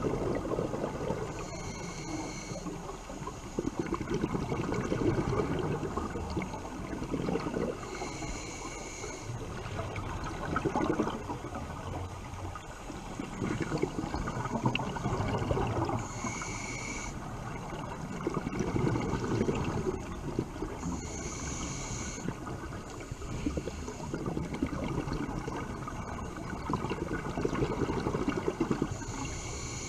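Scuba regulator breathing heard underwater: a hissing inhale with a faint whistle about every five to eight seconds, alternating with a rumble of exhaled bubbles.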